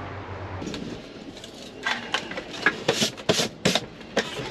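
Hard plastic dashboard parts knocking, clicking and scraping as they are handled and fitted back into a truck's dash, a quick irregular run of sharp knocks in the second half. A steady hum stops under a second in.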